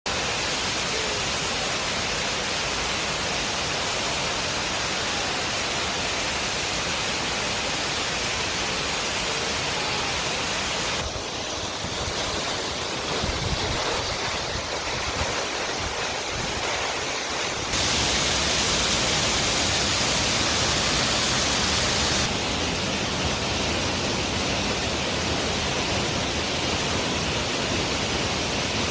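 Waterfalls rushing: a steady, dense water noise that shifts abruptly in tone and loudness three times as one waterfall cuts to another.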